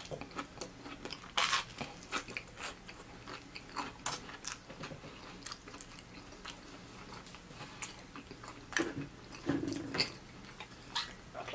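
A person close-miked, biting into and chewing Texas toast topped with cheesy Hamburger Helper pasta. Irregular crunches and wet chewing sounds, the crunches loudest in the first few seconds.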